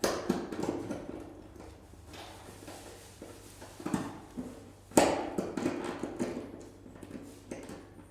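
Old wooden parquet floor knocking and creaking under pressure in a few irregular knocks and short creaks, the loudest knock about five seconds in: the floor squeak being dealt with.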